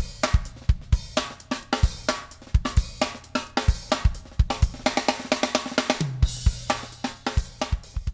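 Outro music: a drum kit beat with snare, hi-hat, cymbals and bass drum, over a low bass line, fading out at the end.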